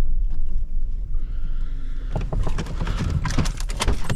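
Ford SUV's cabin: low engine and tyre rumble as it rolls to a stop, then from about two seconds in a run of short clicks and rattles as the vehicle is parked and the controls and keys are handled.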